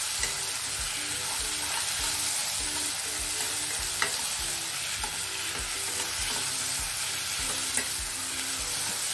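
Diced potatoes and onion-tomato tempering sizzling gently in oil in a kadai on a low flame, while a spatula stirs and scrapes them round the pan, with a couple of sharper clicks.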